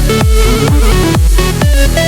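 Electronic dance music with a steady four-on-the-floor kick drum, about two beats a second, under sustained synth tones.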